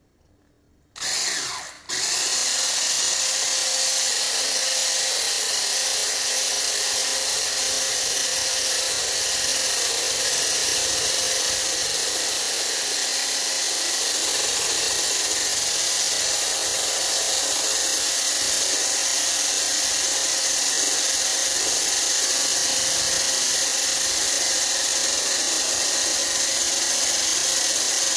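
Electric kitchen mixer motor starting with a short burst, then running steadily at one speed.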